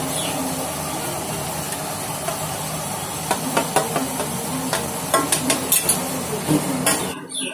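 Crumbled dhokla being scraped with a plastic spatula off a steel plate into a kadhai of hot tempering, over a steady sizzling hiss. From about three seconds in comes a run of sharp scrapes and taps of the spatula against the plate. The sound stops abruptly near the end.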